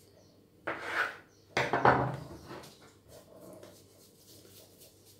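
A kitchen knife and dough worked on a floured countertop: two short knocking scrapes, about a second and two seconds in, the second louder, then soft rubbing as a piece of dough is rounded between the hands.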